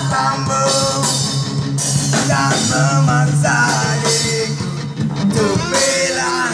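Live rock band playing: drum kit and guitar under male vocals singing.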